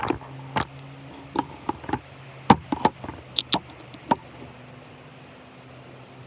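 A series of sharp, irregular knocks and taps, about a dozen in the first four seconds, then stopping, over a faint steady low hum.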